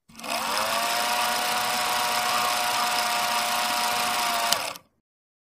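Film projector sound effect: a steady mechanical whirr with hiss, its tones rising as it spins up at the start, a single click near the end, then cutting off suddenly.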